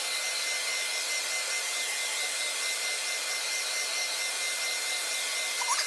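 Handheld hair dryer running steadily: a constant rush of air with a thin high whine through it.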